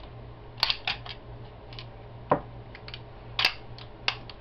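Metal clicks and clacks of a 1911 pistol being unloaded, the magazine released and the slide worked to eject the chambered round. About half a dozen sharp clicks are spread through it, with one duller knock a little past halfway.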